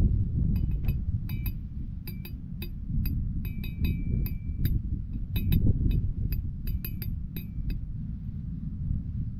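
A rusty iron rod tapped over and over against a metal pole: a quick, uneven run of light metallic clinks, about three or four a second, a few of them ringing on briefly, stopping shortly before the end.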